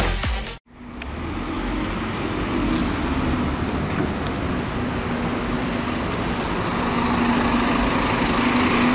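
Intro dance music cuts off in the first second, then a Scania Omnicity N230UD double-decker bus with a five-cylinder diesel runs toward and past close by, its engine drone growing louder over steady street traffic noise.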